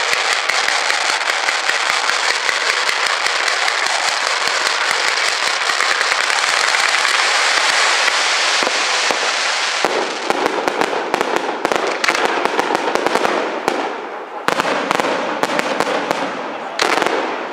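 Aerial fireworks display: a dense, unbroken crackling of many shells and comets bursting at once for about ten seconds, then thinning out into separate bangs and crackles.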